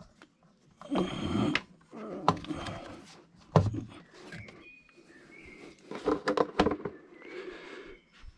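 Corrugated rubber air-intake hose being handled and worked into place in a car's engine bay: rubbing and scraping with a series of sharp knocks and clicks from the hose and nearby plastic parts.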